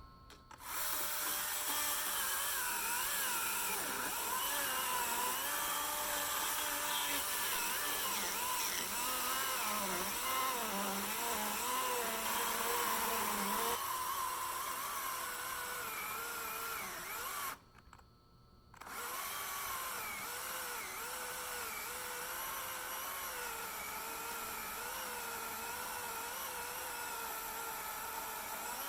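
Husqvarna 120i 40-volt battery chainsaw cutting firewood: a steady electric-motor whine whose pitch wavers up and down as the chain loads and unloads in the wood. The sound breaks off for about a second about two-thirds through, then carries on.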